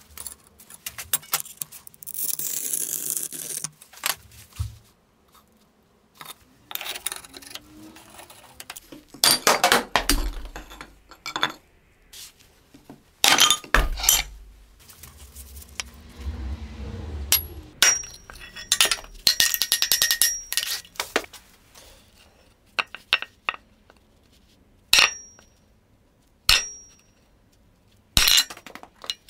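Hard ceramic pieces of a belt-grinder platen back plate clinking and knocking as they are handled and set down, with a few short high rings. A short hiss comes about two seconds in.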